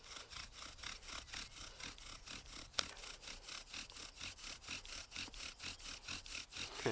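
Bow drill being worked: the wooden spindle turns back and forth in the hearth board with a quick, even rhythm of rasping strokes as the bow is sawn, building heat to form an ember. There is one sharp click about three seconds in.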